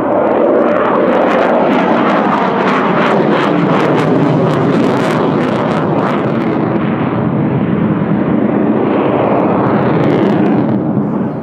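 Mikoyan MiG-29's twin Klimov RD-33 turbofan engines at high power as the jet flies a tight display manoeuvre. It is a loud, steady jet roar with a ragged crackle through the first half, then a smoother rush, with a little crackle again near the end.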